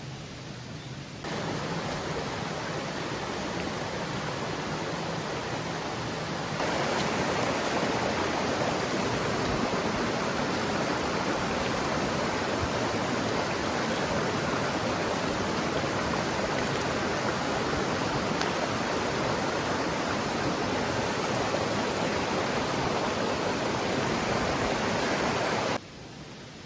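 A small mountain creek rushing steadily over rocks. It jumps louder about a second in and again a few seconds later, and cuts off abruptly near the end.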